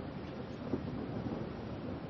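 Steady rain falling: an even, dense hiss with a deep low rumble underneath.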